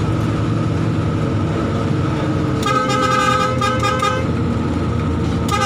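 Intercity bus's diesel engine running steadily, heard from inside the cabin. About halfway a multi-tone air horn sounds a quick run of notes for about a second and a half, and it starts again near the end.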